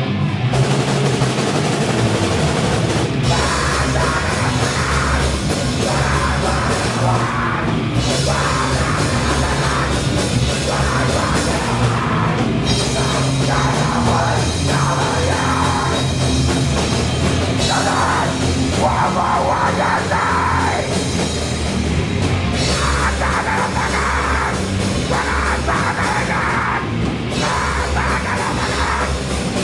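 Live band playing loud heavy rock with a drum kit and guitars, with yelled vocals over it.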